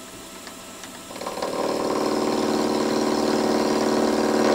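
Milling machine running, its end mill taking a light skim cut across the face of a model steam chest casting: after a steady spindle hum, about a second in the cutter bites and a steady, pitched cutting whine sets in, then drops away suddenly near the end as the cut finishes.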